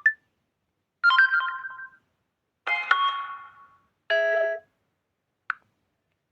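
Samsung Galaxy A06 alert tones played one after another: a few short electronic chimes, each under a second long and fading out, then a steady tone that cuts off, and a brief blip near the end, with silence between them.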